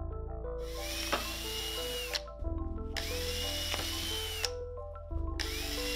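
Cordless drill with a 1/4-inch bit boring out pegboard holes one after another, re-drilling them through the turf glued on top. It runs in three short bursts, each starting with a rising whine that holds steady and then drops away.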